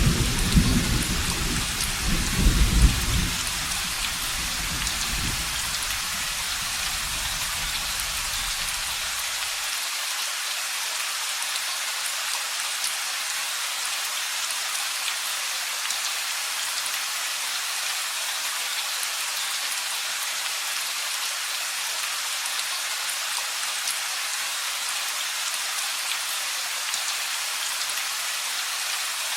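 Steady rain falling, with a low roll of thunder at the start that dies away over the first ten seconds or so, leaving only the even hiss of the rain.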